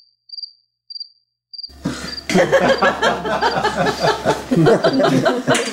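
Cricket chirping sound effect, a short high chirp about every half second over dead silence: the stock gag for boredom or an awkward silence. From about two seconds in, voices take over and the chirps carry on faintly underneath.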